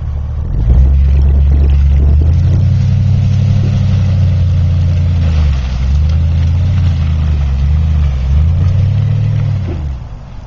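Chevrolet Avalanche's V8 revving hard under load as the truck pushes through mud. The engine comes in about half a second in, its pitch dips and climbs back a few times, and it drops off near the end.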